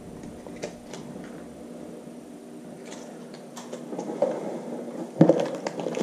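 Faint steady hum with a few light clicks as a smoke detector is handled; from about five seconds in, louder knocking and scraping of the detector and its plastic and cardboard packaging being handled.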